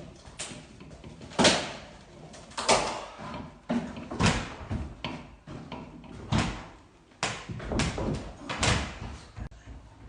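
A series of irregular knocks and thuds from renovation work, about one a second, the loudest about a second and a half in.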